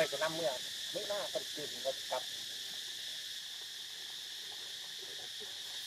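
Insects buzzing steadily in a high continuous drone. Over it, a few brief pitched calls in the first two seconds.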